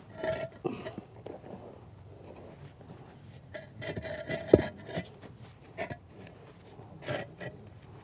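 Hollow concrete honeycomb retaining-wall blocks being set and shifted by hand, concrete knocking and scraping on concrete in a few short clusters, the loudest knock about halfway through.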